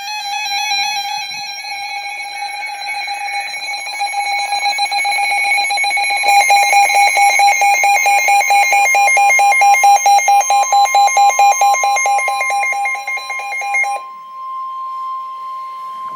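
Emergency weather alert alarm from a weather alert radio: a loud electronic warble that turns to a fast pulsing about six seconds in and cuts off suddenly near the end. A steady single tone of about 1 kHz comes in near ten seconds and holds on after the alarm stops: the NOAA Weather Radio warning alert tone that announces a warning.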